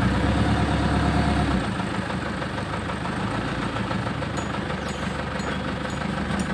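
Six-wheeler mini dump truck's engine running steadily at low speed while the truck manoeuvres. A deep low hum is strong for about the first second and a half, then eases back to a steadier, lower running note.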